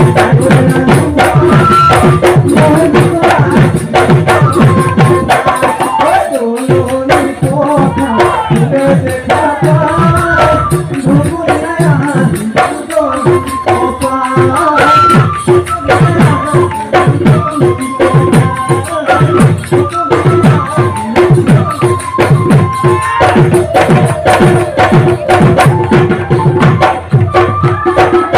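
Live Bihu folk music: several Assamese dhol drums playing a fast, dense rhythm, with a melody line over them and a steady held tone underneath. The drums drop out for a moment about six seconds in, then pick up again.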